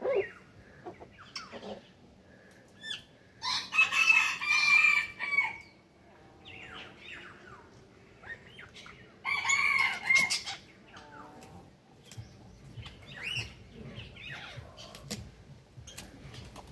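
A rooster crowing twice: a longer crow about three and a half seconds in and a shorter one about nine seconds in. Short, fainter fowl calls fall between and after the crows.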